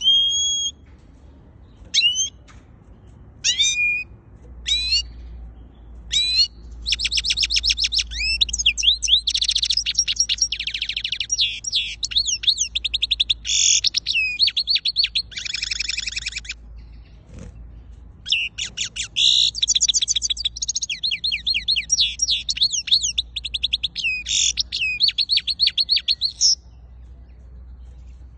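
Goldfinch singing: a few separate calls at first, then long runs of fast, twittering song with a short break in the middle, stopping a couple of seconds before the end.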